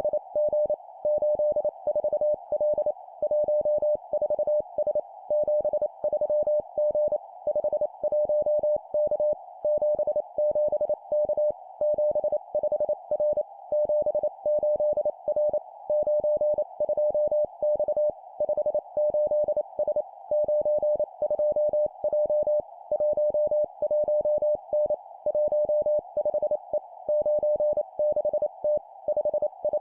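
Morse code (CW) sent at 25 words per minute as a single steady mid-pitched tone keyed on and off in quick dots and dashes, in three-character groups of two digits and a letter, with short pauses between groups. A steady narrow hiss sits under the tone and fills the gaps.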